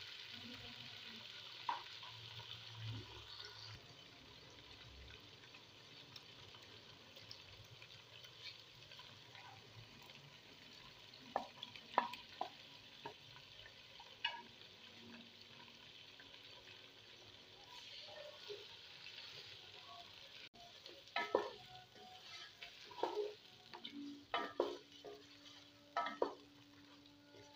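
Raw chicken pieces frying in oil in a pot, a low steady sizzle. A wooden spatula stirs them, with short knocks and scrapes against the pot around the middle and more often near the end.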